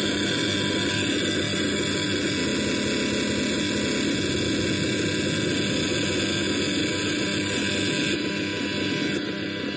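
Homemade experimental noise synthesizer, the Void Generator, putting out a dense, steady wall of noisy drone with a few faint steady tones inside it. Near the end it steps down in level twice and loses some of its top end as its knobs are turned.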